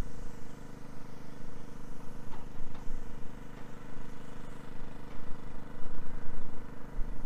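Wind buffeting the microphone: a low, gusting rumble that rises and falls in loudness, with a faint steady hum beneath.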